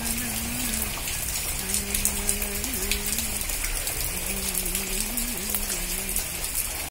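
Steady rain falling, a dense even patter of raindrops on the surfaces around.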